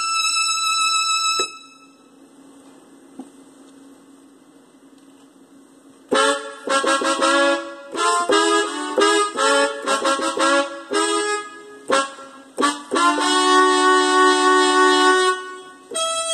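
Synthesizer keyboard playing a melody on a reedy, horn-like lead voice. A held note stops about a second and a half in, and a pause of a few seconds follows. Then a quick run of short notes starts about six seconds in and settles onto longer held notes near the end.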